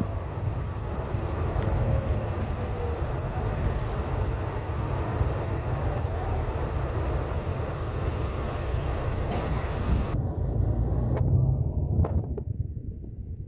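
Steady low rumble of a double-decker bus on the move, heard from inside: engine and road noise with a wash of hiss. The hiss drops away suddenly about ten seconds in, leaving the low rumble.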